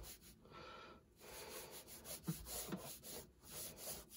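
Faint scratching of a red pencil sketching on toned Strathmore paper, in short strokes.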